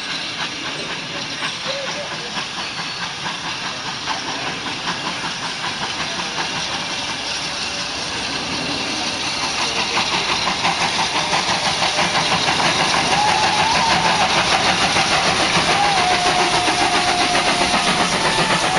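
The 1925 Côtes-du-Nord steam locomotive approaches and draws its train past, steam exhaust chuffing in a fast, even rhythm that grows steadily louder as it nears. A steady held tone sounds over the chuffing in the last few seconds.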